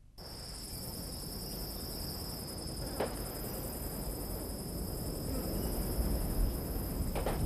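A steady, high-pitched cricket chorus over a low rumble that slowly grows louder, with a sharp click about three seconds in and another near the end.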